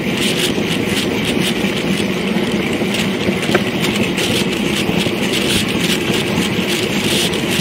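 Steady wind rushing over an action camera's microphone on a bicycle at about 40 to 47 km/h, with rapid fluttering buffets.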